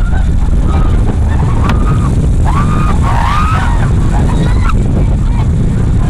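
White-water rapids rushing under an inflatable raft, a heavy steady rumble of water and wind buffeting the microphone. Short yells from the people on the raft rise and fall over it, bunched together about halfway through.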